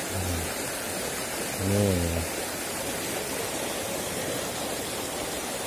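Shallow rocky stream running over stones, a steady rush of water, with a short vocal sound from a man about two seconds in.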